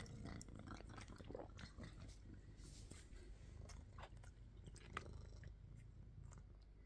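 Faint chewing and lip-licking of a cat eating a small piece of pineapple: scattered soft clicks and smacks, one a little louder about five seconds in.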